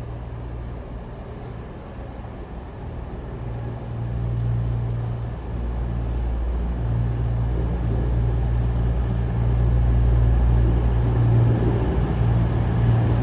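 Class 221 Super Voyager diesel multiple unit arriving, its underfloor diesel engines droning low and steadily, growing louder from about four seconds in as the train draws in.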